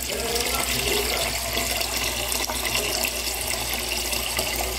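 Tap water pouring steadily into a cooking pot as it is filled with water.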